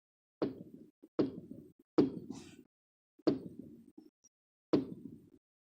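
Aerial firework shells bursting in the sky: five separate booms at uneven intervals, each a sharp bang followed by a rumbling tail that dies away.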